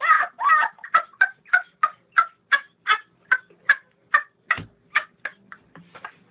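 An animal calling in a rapid run of short, high-pitched calls, about three a second, keeping up a steady rhythm.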